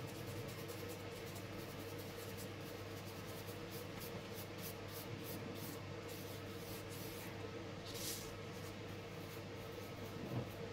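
Fingertips rubbing soft-pastel powder into paper in small circles, a faint dry scratchy rubbing. A short hiss comes about eight seconds in, and a light bump near the end as the paper is shifted.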